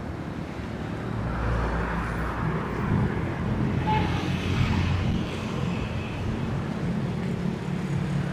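Road traffic on a city street: a passing vehicle's engine hum with tyre noise grows louder about a second in and stays steady.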